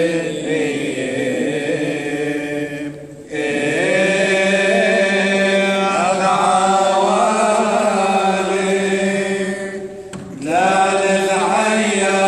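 A congregation of men chanting a Syriac liturgical hymn in unison from prayer books, in long held melodic phrases. The singing dips briefly about three seconds in and again near ten seconds, and each new phrase begins with a rising slide.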